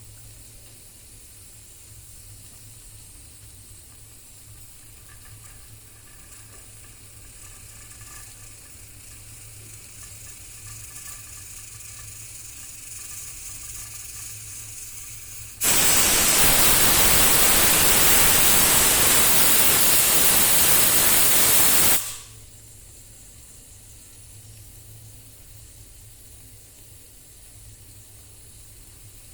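Pressure cooker venting steam. A faint hiss slowly builds, then a loud rush of steam starts suddenly about sixteen seconds in, lasts about six seconds and cuts off abruptly.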